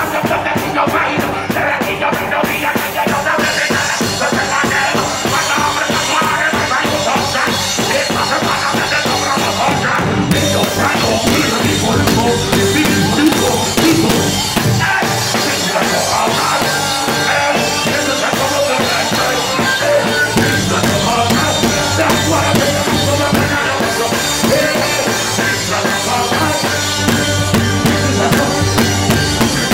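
Live reggae band music played loud, with drum kit and cymbals up front, heard through a phone microphone close to the drummer on stage.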